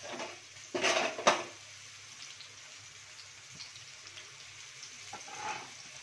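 Steel spoon scraping and clinking against a steel kadhai while chopped onion fries with a faint sizzle. A scrape ending in a sharp clink comes about a second in, and a shorter scrape near the end.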